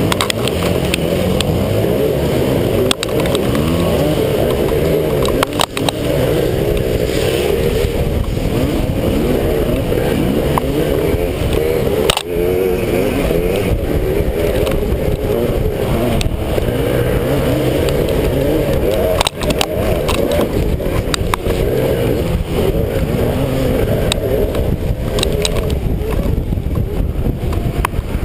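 Zero MX electric dirt bike's motor and drivetrain running hard over rough trail, its pitch rising and falling with the throttle, over heavy wind and trail rumble. A few sharp knocks from the bike hitting bumps.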